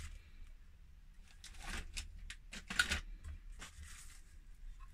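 Plastic wrap crinkling in a few short rustles as a shrink-wrapped circular saw blade is picked up and handled, over a faint steady low hum.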